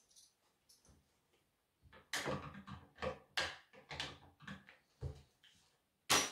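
Hands working on a chainsaw with small tools: an irregular run of sharp clicks and knocks of plastic and metal parts, then one louder knock near the end.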